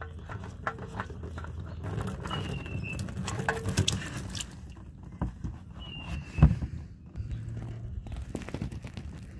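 Scattered clicks and knocks from handling a Toyota cartridge oil filter and its housing, the loudest a sharp knock about six and a half seconds in. A short falling chirp repeats about every three and a half seconds.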